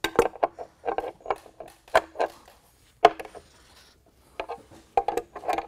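Wrench on the steel nut and washer of a half-inch carriage bolt, tightening it to draw the bolt's head into the wood: a string of irregular metal clicks and clinks as the wrench is turned and refitted on the nut.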